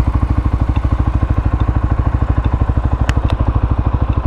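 ATV engine running steadily with an even low chugging pulse, about ten beats a second. Two short clicks come about three seconds in.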